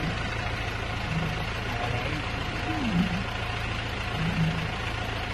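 Safari bus engine idling steadily, with a few brief, faint voices from passengers.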